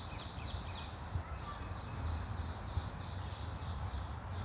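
A bird calling in a series of short falling notes, about three a second, with a pause near the middle. A steady low rumble sits underneath.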